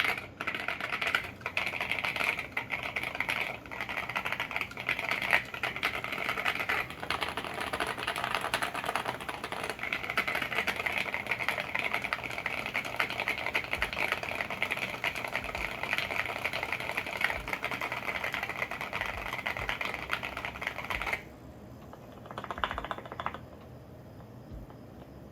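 Rapid, continuous typing on a custom Tofu65 acrylic mechanical keyboard with lubed and filmed Alpaca V2 linear switches and SA ABS keycaps. The typing stops about four seconds before the end, and one short flurry of keystrokes follows a second or so later.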